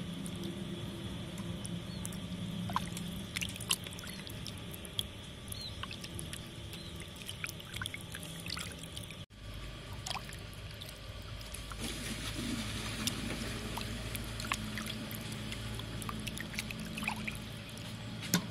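Water sloshing, splashing and dripping as raw chicken drumsticks are rubbed and rinsed by hand in a stainless-steel bowl of water, with many small splashes throughout and a brief break about halfway.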